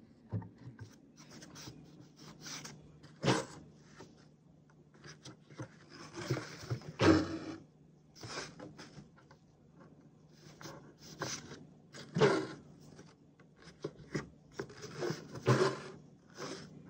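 Cotton fabric and a wooden embroidery hoop handled close to the microphone: irregular rustles and scrapes of cloth being rubbed and shifted, with a few louder, longer rubs.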